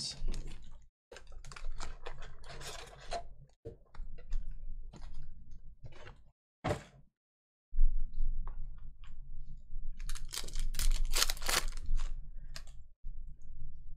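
Foil-wrapped trading-card packs crinkling and clicking as they are handled and stacked, a run of short crackles with a denser stretch of crackling about ten seconds in. The sound cuts out to silence briefly a few times.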